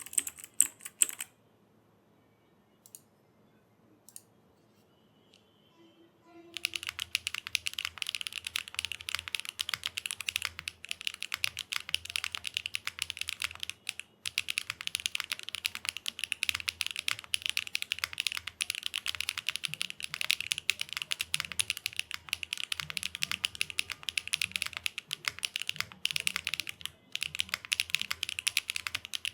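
Custom mechanical keyboard with HMX WaveRider V2 tactile switches in an aluminium plate, no foam, and GMK keycaps, being typed on. A few scattered key clicks come first, then fast continuous typing from about six seconds in, broken by a couple of short pauses.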